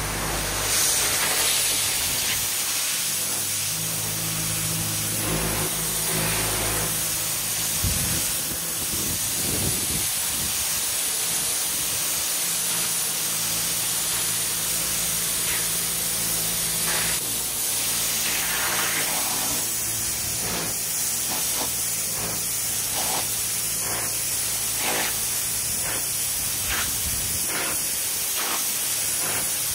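High-pressure water jet from a pressure washer lance blasting dirty concrete paving slabs: a loud, steady hiss and spray. A low steady hum sits under it for the first half. From about halfway the spray pulses rapidly as the jet sweeps back and forth over the slabs.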